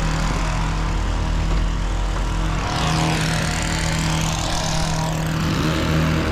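Gas-powered hedge trimmers running, a steady small-engine drone; from about three seconds in a higher whirring sound joins.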